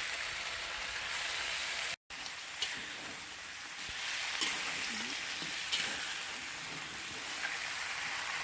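Food frying in a pan: a steady sizzle, with a few light clicks scattered through. The sound cuts out for an instant about two seconds in.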